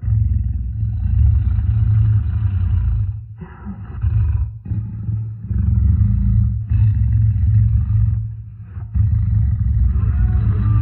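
A large animal's deep, drawn-out vocalizations, coming in several long stretches separated by brief pauses.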